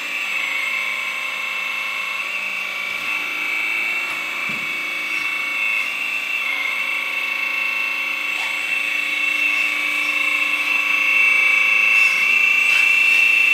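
Hydraulic pump motor of a 1/14-scale metal RC excavator running with a steady high-pitched whine, its pitch dipping slightly a few times as the boom and arm are worked.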